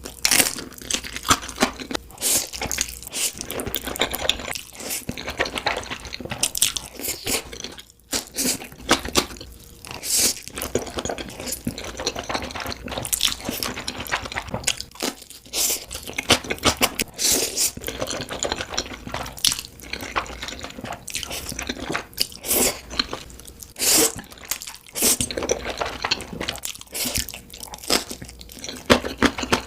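Close-miked eating of a Korean black bean noodle (jjajangmyeon) meal: a steady run of crunchy bites and chewing, with many short, sharp crunches coming irregularly one after another.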